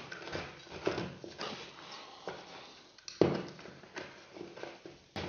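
Handling noise as a cable and a small plastic inline dimmer are pushed up through a downlight hole into a ceiling void: scattered rustles and small clicks, with a sharper knock about three seconds in.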